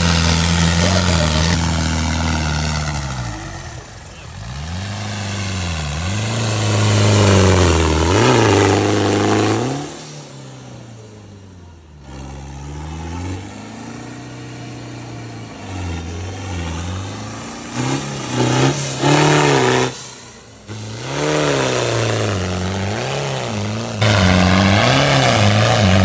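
Off-road 4x4 trucks' engines revving hard as they push through deep mud, the pitch swooping up and down over and over.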